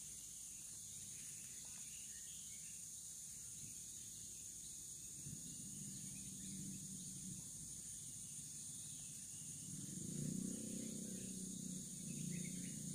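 Steady high-pitched drone of tropical forest insects, two continuous shrill layers. Near the end a faint lower sound swells in underneath.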